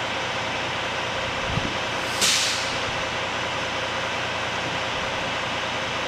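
Steady fan-like background noise, with one short hiss of air about two seconds in that fades out within half a second.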